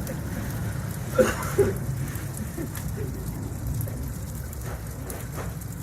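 Steady, rumbling noise of a water-well drilling rig and its air compressor running, with two short louder sounds a little over a second in.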